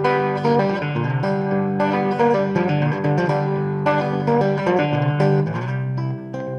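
Background guitar music: a run of plucked notes over held low bass notes.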